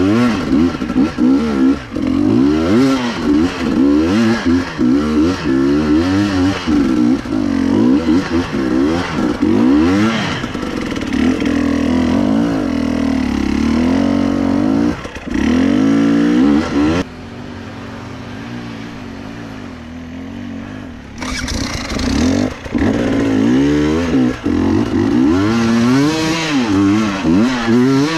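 KTM EXC 300 single-cylinder two-stroke dirt bike engine, revved up and down over and over as it is ridden on an off-road trail. About two-thirds of the way through it drops to a quieter, lower, steadier run for a few seconds, then revs up again.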